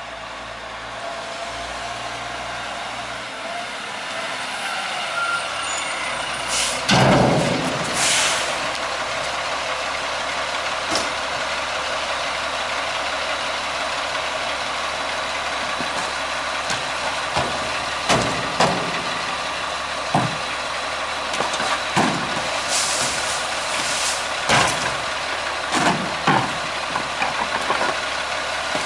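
Peterbilt 320 green-waste truck with a Maxon front-loader body pulls up and stops, with a loud air-brake hiss about seven seconds in and a second burst about a second later. Its diesel engine then idles while green-waste cans are emptied by hand into the front bucket, making a series of sharp knocks and bangs through the second half.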